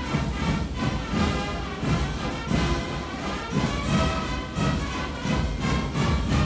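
Military brass band playing a march with a steady beat.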